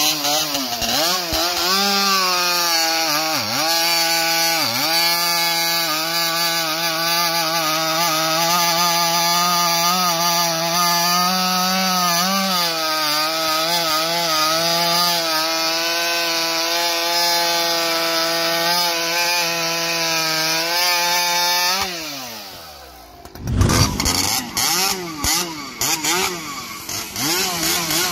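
Ported two-stroke chainsaw with an expansion pipe running at full throttle through a large log, its pitch dipping under the load several times in the first few seconds, then winding down at the end of the cut. After a short lull, a second piped chainsaw is revved in quick, sharp blips.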